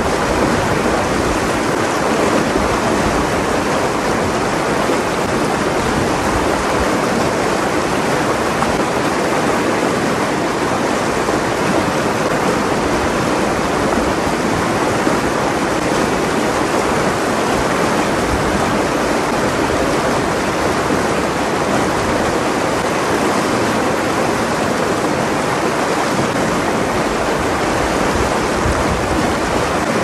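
Shallow rocky stream rushing over rocks and small riffles: a steady, even rush of running water.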